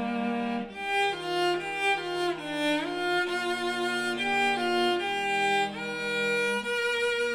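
Background music: a violin melody moving note by note over held lower string notes.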